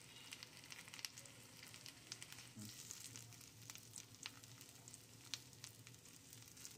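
Chicken legs shallow-frying in hot oil in a nonstick pan: a faint, steady sizzle with scattered sharp pops of spitting oil, in the final browning stage of cooking.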